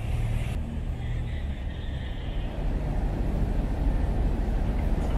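Low, steady rumble of a motor vehicle's engine running.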